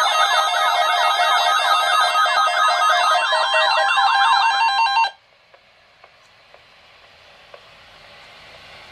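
Loud electronic alarm-like warble: steady tones under rapidly repeating pitch sweeps, several a second. It cuts off abruptly about five seconds in. After the cut there is only a faint hiss that slowly grows, with a few light clicks.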